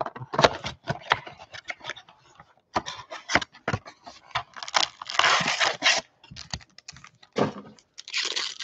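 Foil trading-card packs being pulled from a cardboard Panini Mosaic hobby box and handled: a run of quick clicks and cardboard scrapes, with bursts of foil-wrapper crinkling about five seconds in and near the end.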